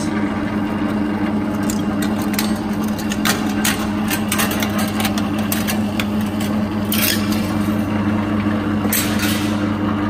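Single-phase 240 V electric lockseamer (Steelmaster SM-L20N) running steadily with a hum, its six-stage forming rolls forming and shearing a strip of 0.55 mm galvanised sheet into a C-cleat. Light metallic clicks and rattles come through the hum as the sheet passes, with sharper clanks about seven and nine seconds in.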